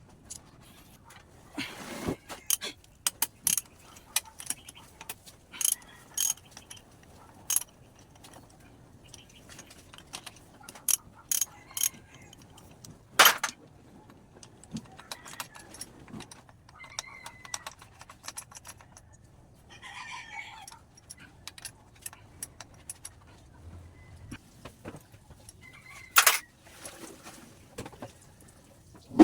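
Metal tools and parts clinking and tapping in irregular sharp clicks while a Honda TMX 155 motorcycle engine's top end is being taken apart.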